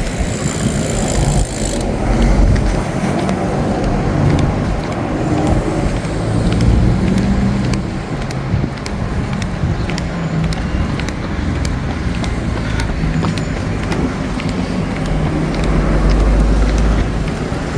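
Road traffic: cars passing in a steady rumble, swelling louder a couple of seconds in and again near the end.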